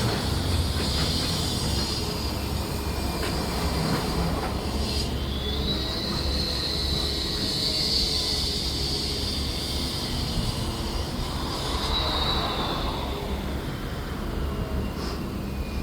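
A long, high-pitched metallic squeal over a steady low rumble. The squeal comes in about five seconds in, holds for several seconds, then drops in pitch and fades near the end.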